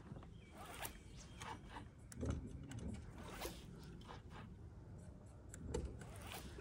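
Faint, irregular clicking and scraping of fishing tackle being worked during a lure retrieve.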